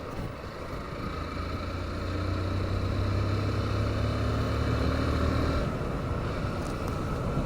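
Motorcycle engine running under way, with steady road and wind noise; the engine note grows stronger about a second and a half in, holds, then eases off a little past halfway.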